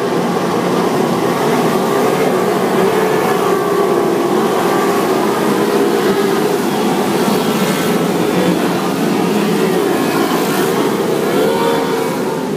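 Many racing outboard powerboat engines at full throttle together, a loud continuous drone in which several engine pitches overlap and waver up and down.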